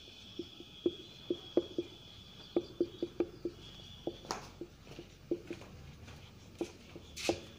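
Marker pen writing on a whiteboard: a string of short, irregular taps as the tip strikes the board, with a brief longer scratchy stroke about four seconds in and another near the end.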